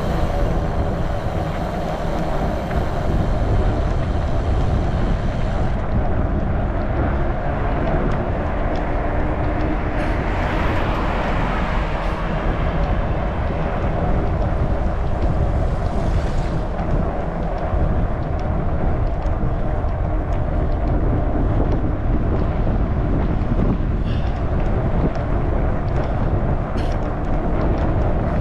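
Wind buffeting the microphone with a steady low rumble while riding a Trek Farley 9.6 fat bike, over an even hum that fits its wide knobby tyres rolling on pavement. The sound swells a little brighter about ten seconds in.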